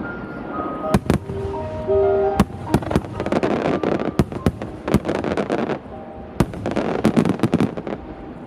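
Starmine fireworks barrage: shells bursting in quick succession, many sharp bangs close together with dense crackling between them, over the show's music, which is clearest in the first couple of seconds.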